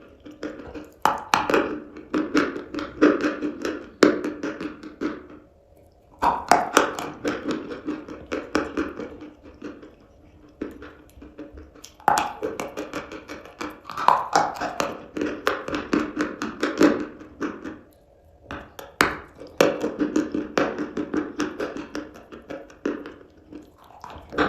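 Close-up crunching of chalk being bitten and chewed: clusters of crisp cracks a few seconds long, with short pauses between them.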